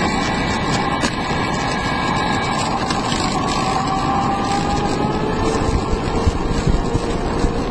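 Home-built electric longboard rolling on asphalt: a rumble of the urethane wheels on the road with a thin motor whine over it that slowly shifts in pitch, dropping to a lower steady whine about five seconds in.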